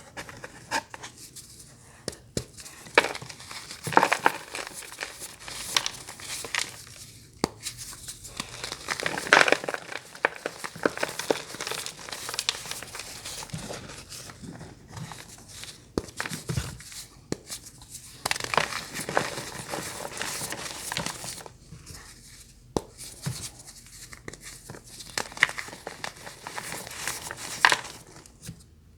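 Close-up crinkling and crunching of crisp, brittle material: irregular crackles with sharp snaps every second or so and a few short pauses.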